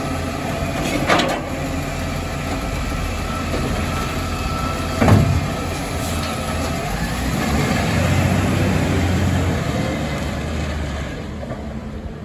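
Side-loading garbage truck running while its automated arm lifts and tips a wheelie recycling bin into the hopper, with a loud knock about five seconds in as the bin is emptied. The engine grows louder near the end as the truck pulls away.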